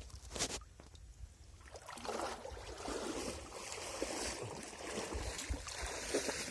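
Water splashing and sloshing: one brief splash about half a second in, then steady irregular splashing from about two seconds in.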